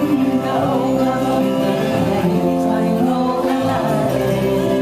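Polynesian song playing, with singing over instrumental accompaniment.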